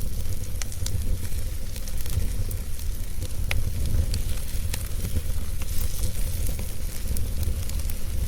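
Wood fire burning, with irregular sharp crackles and pops scattered through a steady low rumble.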